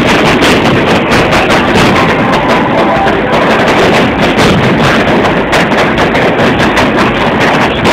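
Fireworks bursting in rapid succession, many bangs and crackles running together into one loud, continuous clatter.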